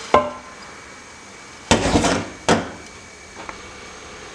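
Kitchen dishes being handled: a sharp clink with a brief ringing tone at the start, then about two seconds in a rough scrape followed by a sharp knock, and a faint tap a second later.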